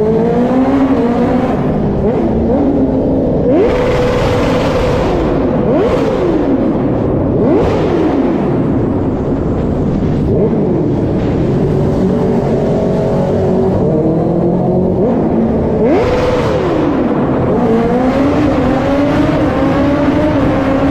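Kawasaki H2R sport motorcycle engine revving hard under acceleration inside a road tunnel, its pitch climbing and then dropping several times as it goes up through the gears. The tunnel walls make it sound echoing.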